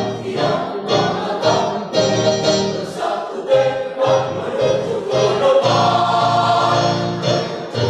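Mixed choir of men and women singing in phrases, with a long held chord from about five and a half seconds in until near the end.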